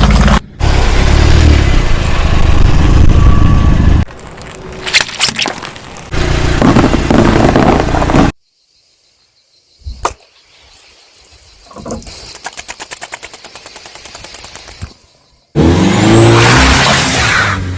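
A string of short, abruptly cut clips of a car crushing objects under its tyres: loud stretches of crunching and engine noise alternate with quieter passages of sharp cracks, and a fast regular ticking runs for about three seconds in the middle.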